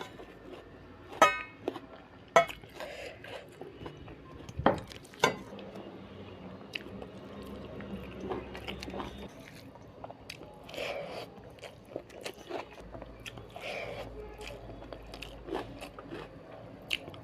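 Close-miked eating of fried chicken with dal and rice: biting and chewing with crunches and wet mouth sounds. The loudest, sharpest snaps come in the first five seconds.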